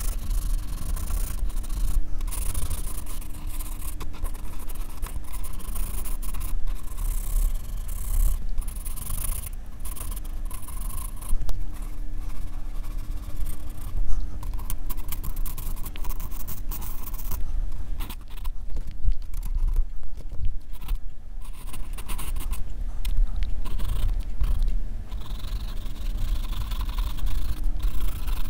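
Graphite pencil scratching on drawing paper in quick, repeated short strokes as fur is sketched, with a low rumble underneath; the strokes ease off briefly about two-thirds of the way through.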